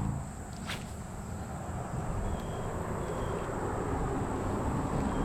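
Steady low rumble of road traffic that slowly grows louder, with a single sharp click about a second in.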